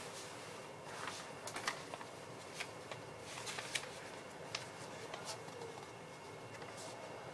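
Faint scattered small clicks and ticks, irregularly spaced, over a steady background hiss.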